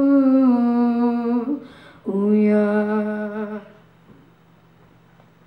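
A boy singing solo and unaccompanied into a microphone, holding two long notes with a short breath between them, the first stepping slightly down in pitch. He stops about two-thirds of the way through, leaving faint room tone.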